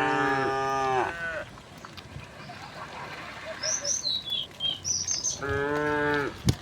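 Cows mooing: one long moo at the start that drops in pitch as it ends, and a second moo about five and a half seconds in. Short, high bird chirps come between the two.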